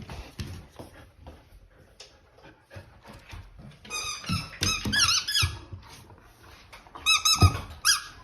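Akita Inu whining in high-pitched, wavering squeals: excited whining, in two bursts around the middle and near the end, over soft thumps and scuffling of the dog moving about.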